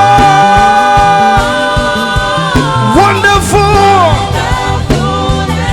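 Live gospel worship music: a lead vocalist holds a long sung note, then slides into a short phrase, over a band with a steady bass and drum beat.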